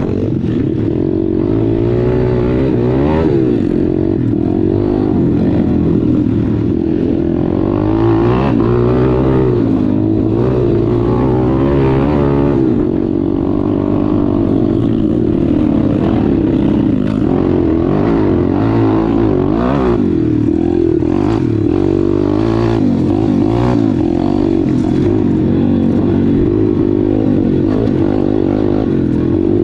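Four-stroke pit bike engine running under a rider on a dirt track, revving up and falling back again and again as the throttle opens and closes through the gears, with occasional knocks from the rough ground.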